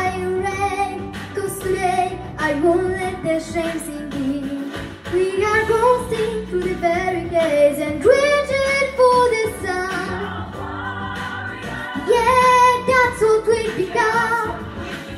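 A young girl singing a pop ballad into a microphone over a backing track, with long held notes that waver in pitch.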